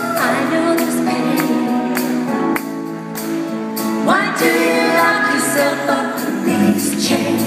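Female vocal trio singing a pop ballad live, amplified through a PA and backed by a band of acoustic and electric guitars and keyboards. The voices come in at the start and again about four seconds in, each entry sliding up into the note.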